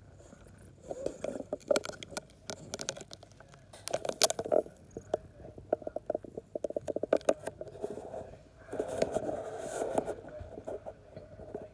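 British Shorthair cat sniffling in several quick bursts of rapid sniffs, with many small clicks.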